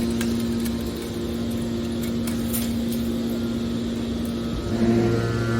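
Hydraulic metal scrap baler's power unit running with a steady hum, growing louder about four and a half seconds in.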